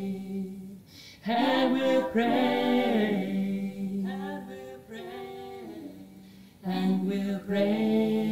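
Singing voices holding long, drawn-out notes of the end-credits song. New sung phrases come in about a second in and again near seven seconds.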